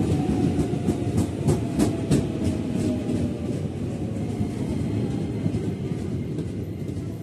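KRL Commuter Line electric multiple unit running past the platform: a steady rumble with wheels clicking over rail joints, most often in the first two seconds, and a whine sliding down in pitch. The rumble eases slightly toward the end.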